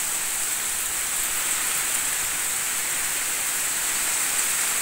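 Heavy tropical rain falling steadily, a constant hiss with no breaks.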